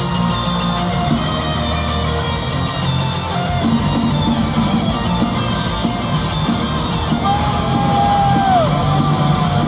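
Live rock band playing loud in an arena, heard from the crowd, with electric guitar on stage. About seven seconds in, a long held note bends downward.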